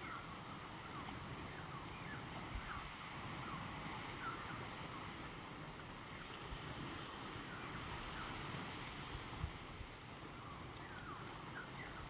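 Steady wind and gentle surf on a calm beach, with wind buffeting the microphone in a few low thumps. Short high bird chirps come again and again throughout.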